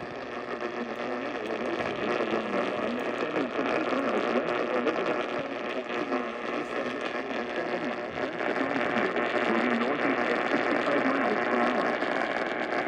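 Heavily distorted Emergency Alert System broadcast audio: a dense, steady buzz of many stacked tones with a garbled, warbling layer underneath and no intelligible words. It grows a little louder over the first couple of seconds.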